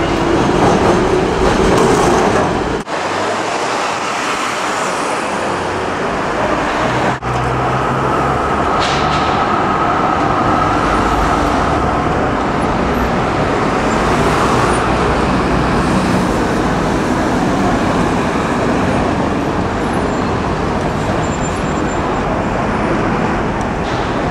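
Busy city street traffic: car and bus engines and tyres, with trams passing. The sound breaks off abruptly twice, about three and seven seconds in.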